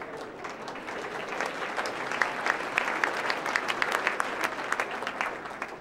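Audience applauding, a dense patter of many hands clapping that builds over the first couple of seconds and tapers off near the end.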